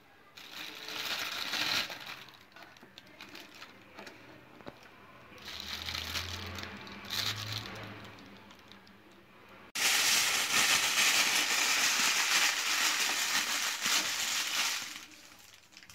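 Thin plastic bag crinkling in short bursts as raw potato sticks are put into it, then, about ten seconds in, the bag is shaken hard with the potato sticks inside for about five seconds, a louder continuous rustle, to coat them.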